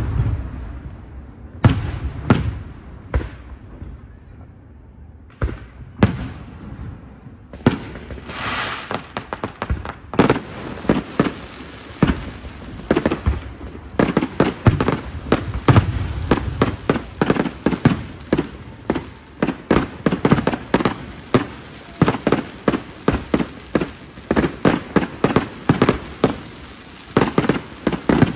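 Fireworks display: aerial shells bursting with sharp bangs, a few spaced apart at first, then from about eight seconds in a dense, rapid run of bangs and crackling.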